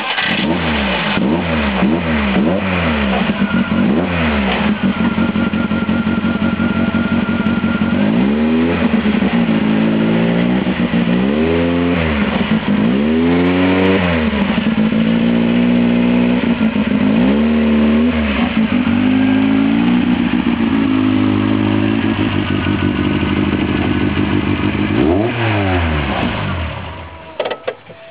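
Škoda Rapid's four-cylinder engine running with no exhaust silencers, loud and revved again and again: quick blips at first, then longer revs that rise and fall. The engine is shut off near the end.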